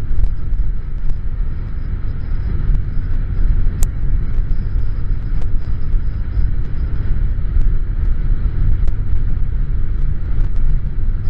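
Suzuki Bandit 1200 inline-four motorcycle cruising along an open road, heard as a steady low rumble of engine and wind buffeting on the microphone.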